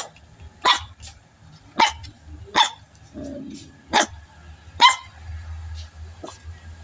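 A puppy barking: six short, sharp barks about a second apart, aimed at people passing by.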